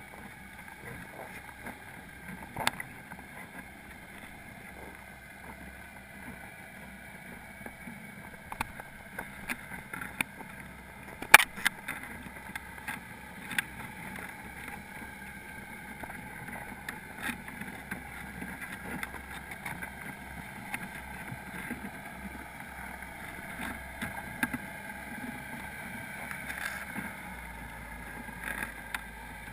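Underwater sound heard through a GoPro's waterproof housing: a steady muffled hiss with scattered sharp clicks and taps, the loudest about eleven seconds in.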